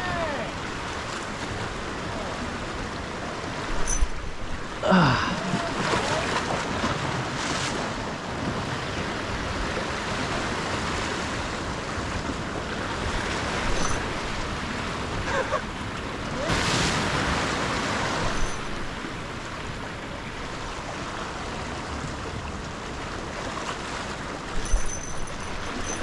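Ocean surf breaking and washing up the beach in a steady rush, with one louder surge of a wave about two-thirds of the way through.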